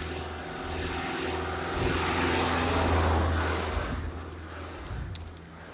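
Propeller aircraft engine droning as it flies past, growing louder to a peak about three seconds in and then fading away.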